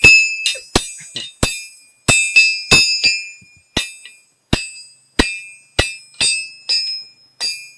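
Blacksmith's hand hammer striking iron on an anvil, about fifteen blows at an uneven pace of roughly two a second. Each blow gives a bright metallic ring that dies away quickly, and the first blow is the loudest.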